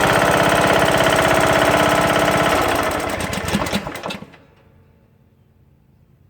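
Briggs & Stratton engine on a Craftsman LT2000 lawn tractor running with a loud, rapid, even knock, then slowing and stopping about four seconds in. The knock appeared after the broken camshaft and timing gear were replaced, and its cause is not yet known.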